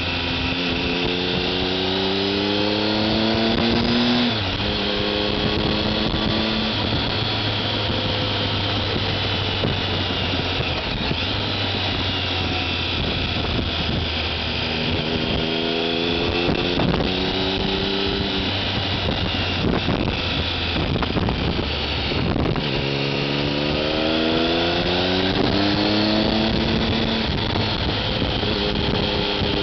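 Triumph Tiger 1050's inline-three engine running through a MIVV aftermarket exhaust while riding, with wind rush throughout. Its pitch rises in three long pulls, at the start, around the middle and near the end, and each drops suddenly at a gear change or as the throttle is closed.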